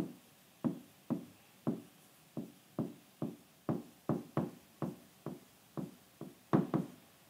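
Pen tip tapping and knocking on a smartboard screen during handwriting: a string of short, uneven knocks, about two or three a second.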